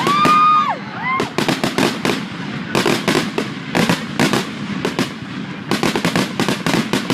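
Fireworks going off: a high whistle near the start, then a dense run of sharp crackling bangs, several a second, with a brief lull about five seconds in.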